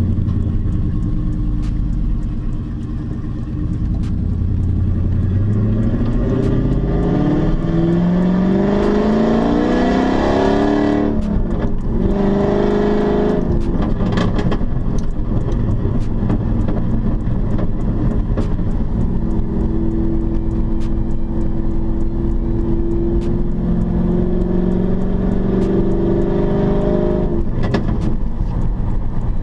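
2006 Dodge Charger's 5.7-litre Hemi V8, heard from inside the cabin with the rear windows down, accelerating hard with its pitch rising. It shifts up about eleven seconds in and again about three seconds later, then settles into a steady cruise and eases off near the end.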